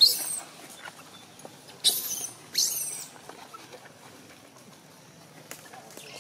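Baby long-tailed macaque yelling in short, high-pitched calls that fall in pitch: three of them, one at the start, one about two seconds in and one near three seconds.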